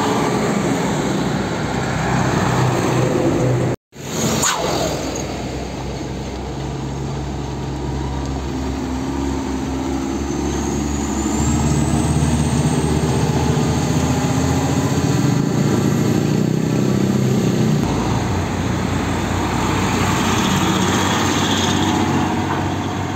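Heavy diesel trucks driving past: engines running with tyre and road noise, the engine note shifting as each truck goes by. The sound cuts out briefly about four seconds in.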